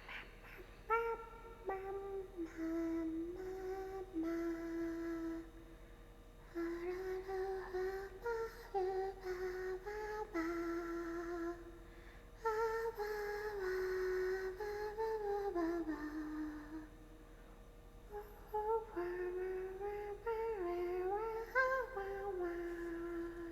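A young woman humming a wordless tune in four phrases with short pauses between them, the pitch wandering up and down.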